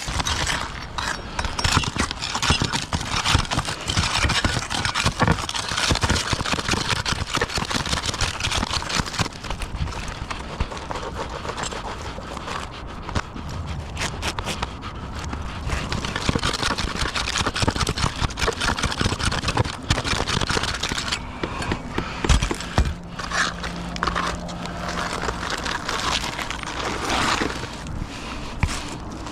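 Continuous scraping and rustling, dense with small clicks and knocks.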